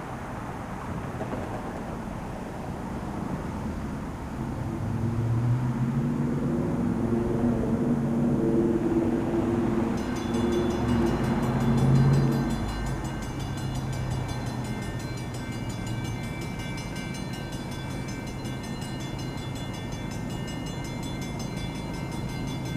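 Freight locomotive's air horn sounding a chord for a road crossing, held for several seconds and loudest about twelve seconds in, over the low rumble of the CSX ES40DC's diesel engine. A high-pitched ringing joins about ten seconds in, and the train's steady rumble carries on after the horn stops.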